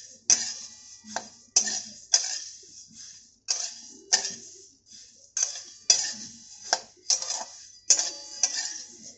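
Whole coriander seeds being stirred with a spatula as they dry-roast in a hammered stainless-steel pan: a dry rattling swish of seeds sliding against the metal with each stroke, roughly two strokes a second.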